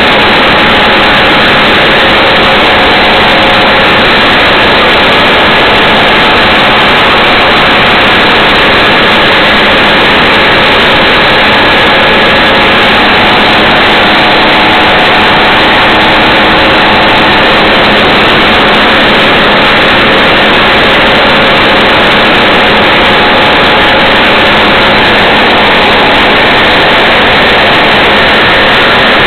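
Case 8230 Axial-Flow combine harvester running steadily while harvesting corn: a loud, even machine noise with a few faint steady whining tones in it.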